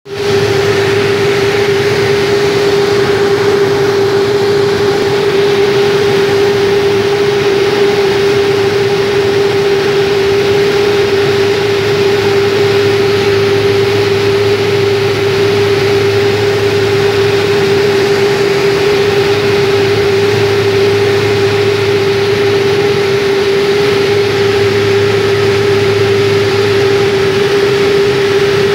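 Cabin noise of a small high-wing turboprop plane in cruise: engines and propellers running steadily, a loud, unchanging hum with one strong constant tone.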